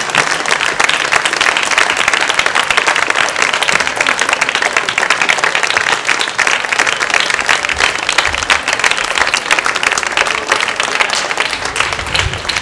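Audience applauding, many hands clapping at once, steady and dense.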